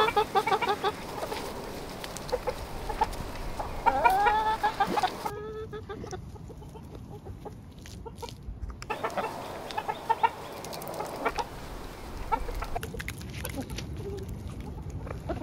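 A flock of chickens clucking, with a few drawn-out arching calls about four seconds in and scattered light clicks throughout.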